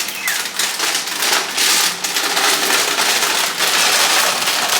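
Food frying in a hot pan, sizzling loudly with dense crackling, getting louder about a second and a half in.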